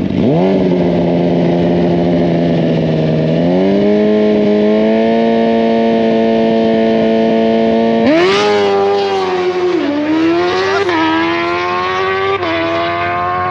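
Drag-racing motorcycle engine held at steady high revs on the start line, the revs stepping up a notch about three seconds in. About eight seconds in it launches hard and the pitch climbs, then falls and rises again at each quick upshift as the bike accelerates down the strip.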